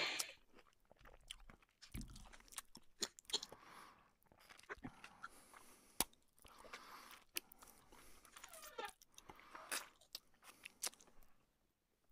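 Close-miked eating sounds: chewing luchi, deep-fried puffed flatbread, with chicken curry eaten by hand. Irregular wet chewing, crunching and mouth smacks, scattered with sharp clicks.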